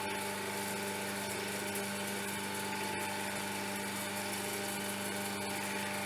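Mac Afric 560mm drum sander running steadily: an even mechanical hum with several steady tones.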